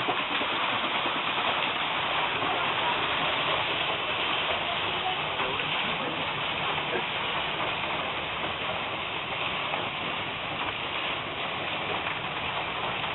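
Steady rush of water pouring and splashing off a turning wooden mill waterwheel.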